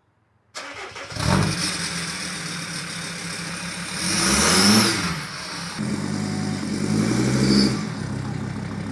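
Sprinter van engine starting about a second in, then running and revved up and back down twice, its pitch rising and falling.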